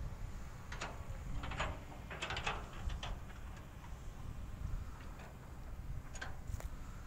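Wind rumbling on the microphone, with a handful of short, high chirps scattered through it.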